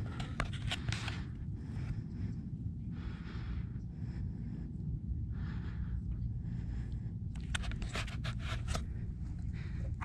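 Low steady rumble of water and wind on a GoPro held at the sea surface, with water splashing and dripping against the camera in clusters of small ticks near the start and again late on, and a few short soft hisses.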